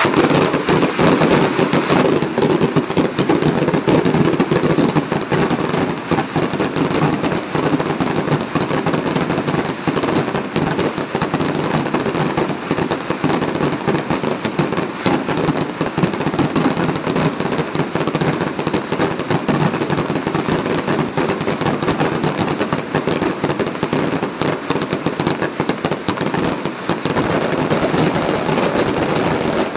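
Aerial fireworks in a continuous barrage: shell bursts and crackling reports follow one another too fast to count, loud and without a break.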